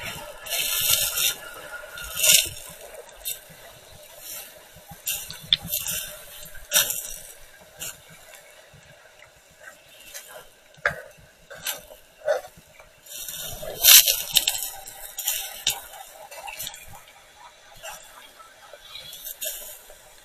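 Water sloshing and bubbling around an SJCAM action camera held underwater, heard as irregular bursts of hiss with a few sharp clicks.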